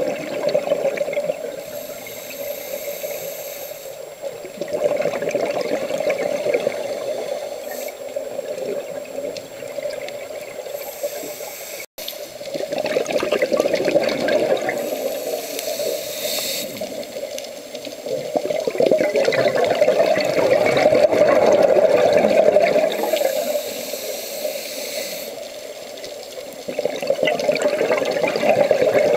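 Scuba regulator breathing heard underwater through a camera's waterproof housing: slow breaths with rushing exhaled bubbles that swell and fade every several seconds, and a brief gap about twelve seconds in.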